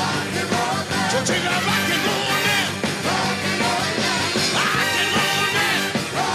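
A live rock-and-roll band playing, with a male lead singer singing into the microphone over it.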